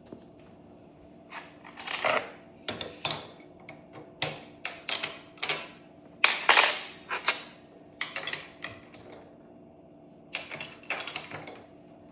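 Metal tools and parts clanking and rattling in an irregular series of knocks and scrapes, some ringing briefly, over a faint steady hum.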